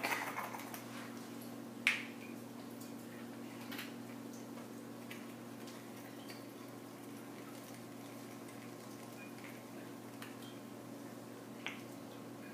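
Steady low hum with a few light clicks and taps as a small plastic cup and pipette are handled, the sharpest click about two seconds in and another near the end.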